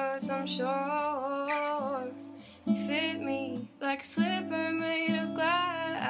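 Background music: an acoustic guitar song with a singing voice.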